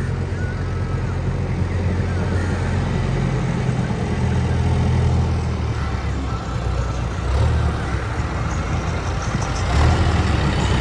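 Diesel engine of heavy machinery running steadily with a deep rumble, swelling briefly a couple of times.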